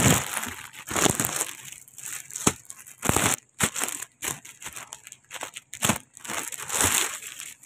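Clear plastic packaging around folded dresses crinkling and crackling as it is handled, in irregular bursts with sharp crackles.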